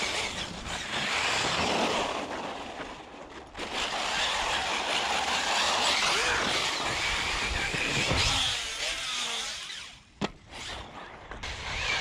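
Arrma Talion 6S RC buggy's brushless motor whining as it is driven across hard-packed dirt, the pitch rising and falling with the throttle, over tyre and gravel noise. A single sharp knock comes about ten seconds in.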